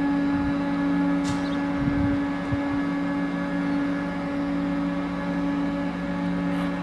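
Diesel locomotives idling: a steady hum with several held tones.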